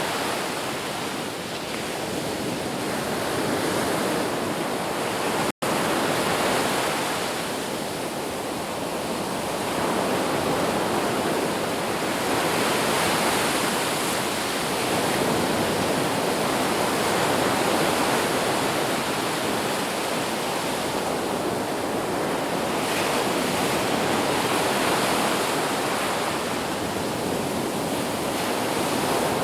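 Ocean surf washing ashore as a continuous rush that swells and ebbs in slow waves every few seconds. The sound cuts out for an instant about five and a half seconds in.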